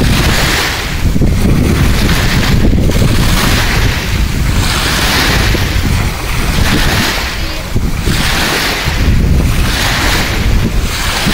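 Wind buffeting the microphone with a heavy low rumble, over small waves washing at the water's edge, the wash swelling and fading every second or two.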